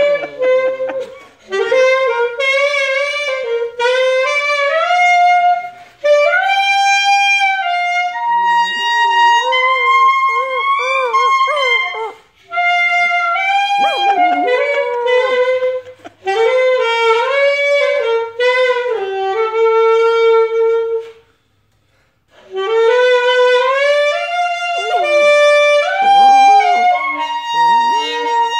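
A saxophone playing a melody in held notes, with a poodle puppy howling along in high notes. The music breaks off for about a second about three-quarters of the way through.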